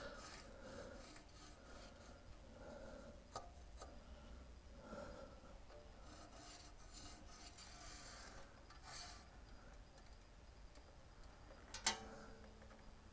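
Faint rubbing and scraping of hands working the blade, wheel and guides of a 9-inch Delta bandsaw by hand with the motor off. One sharp metallic click rings briefly near the end.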